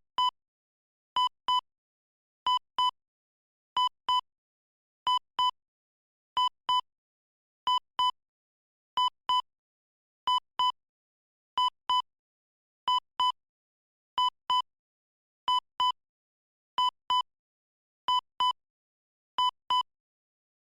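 Heart monitor beeping: two short electronic beeps in quick succession, the pair repeating steadily about every 1.3 seconds with silence between.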